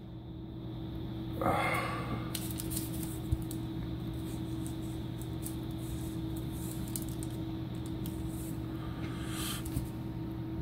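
Parchment paper rustling as it is handled, twice, with light clicks and scrapes of a metal dab tool working pressed hash off the paper in between, over a steady low hum.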